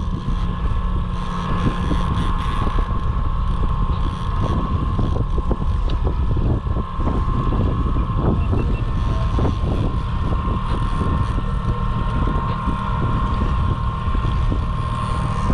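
Boat motor running steadily with a high, even whine, under wind buffeting the microphone.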